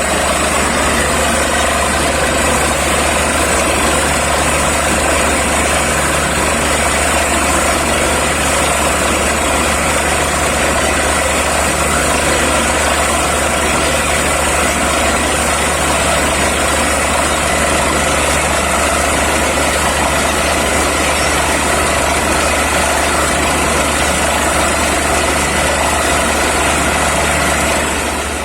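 Borewell drilling rig running steadily: a loud, unbroken engine drone with a dense hiss over it.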